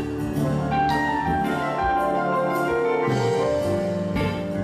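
Live band rehearsing a chord progression: sustained keyboard chords changing pitch, over a few drum and cymbal hits.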